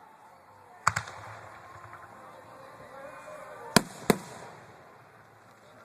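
Fireworks bursting with sharp bangs: one about a second in, then two more close together near four seconds, with faint crowd chatter in between.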